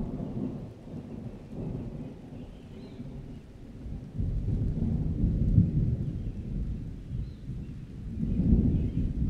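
Thunder rumbling in long rolls from a passing thunderstorm, swelling loudest from about four seconds in and again near the end.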